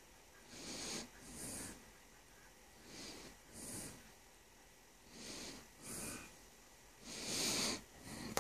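A person breathing noisily through the nose right at the microphone: hissy in-and-out breaths coming in pairs every two seconds or so, with quiet gaps between, the last breath the loudest. The noisy breathing comes from a severely deviated septum and allergies.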